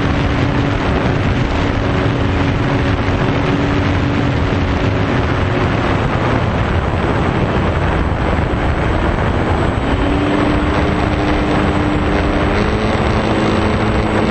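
Electric motors and propellers of RC foam combat planes, a steady whine that fades about halfway through and returns at a different pitch twice near the end, over heavy wind noise on the microphone.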